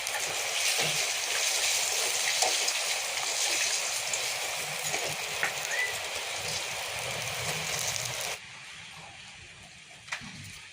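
Rohu fish pieces sizzling in hot oil in a pan, a steady frying hiss. It drops off suddenly about eight seconds in, leaving a much quieter hiss.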